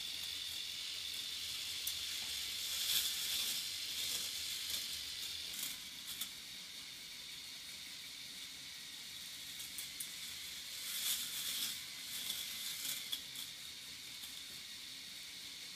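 Battery-powered chain lift of a K'nex toy roller coaster running, a steady faint clattering whir, with two louder rattling stretches.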